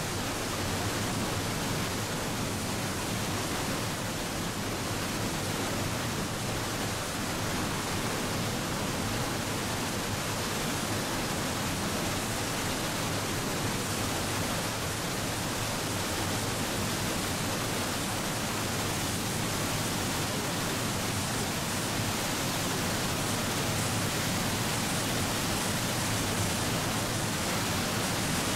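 Murchison Falls: the Nile's white water pouring through a narrow rock gorge, a steady, dense rush of water noise that grows slightly louder over the last few seconds.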